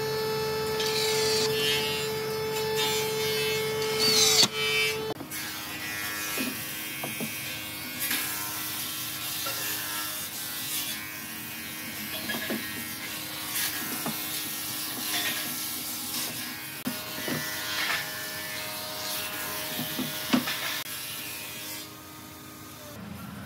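A small electric motor hums steadily, then stops about five seconds in. After that come scattered light knocks and clicks of wooden frames being set and shifted on a wooden cabinet.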